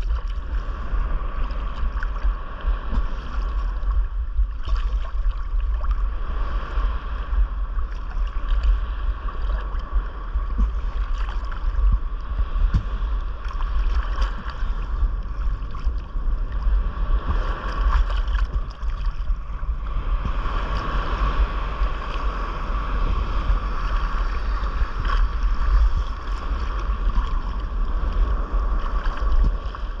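Sea water sloshing and lapping against a GoPro camera floating at the surface, with low wind rumble on its microphone throughout.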